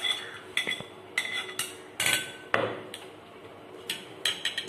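A spoon clinking and scraping against a plate and bowl as fruit is scraped off the plate into the bowl: a dozen or so sharp, irregular clinks with a brief ring, some in quick clusters.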